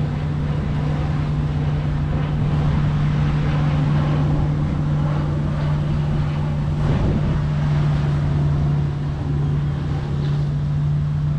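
Steady outdoor background noise with a constant low hum under it.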